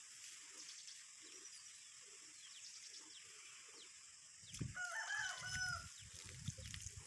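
A rooster crowing once, a single call about a second long a little past the middle, heard faintly over low rumbling noise.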